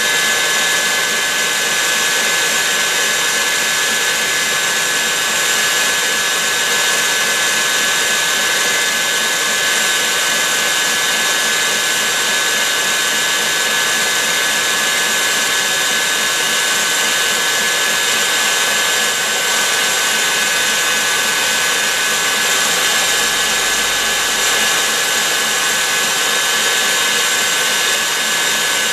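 Stand mixer's motor running steadily with a high whine, its wire whisk beating egg whites into meringue in a stainless steel bowl.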